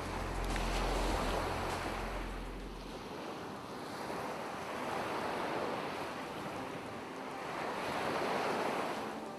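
Ocean surf washing onto a beach, swelling and falling back three times. A low steady drone underneath stops about three seconds in.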